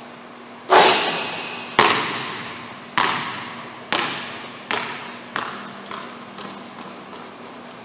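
A basketball shot arrives at the hoop with a loud hit, then the ball drops to the hardwood gym floor and bounces about eight times, the bounces coming quicker and fainter as it settles. Each bounce echoes in the large, empty gym.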